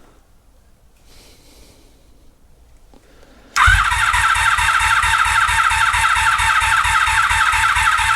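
1983 Honda Magna V45's V4 engine being cranked by its electric starter, starting a little under halfway in: a steady whirring with an even beat of about five compression pulses a second, with no sign of it firing. The engine turns over but does not catch, and the owner wonders whether fuel is reaching it.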